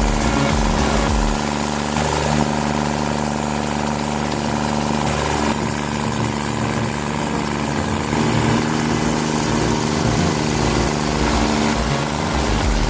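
Engine of a wood-processing machine running steadily.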